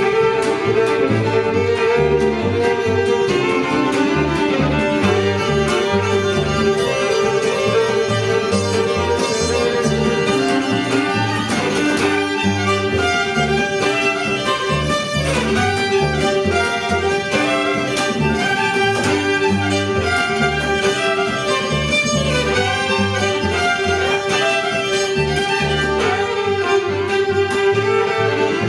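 Fiddle-led instrumental folk tune played live by a string band, the fiddle holding long bowed notes over a steady bass line.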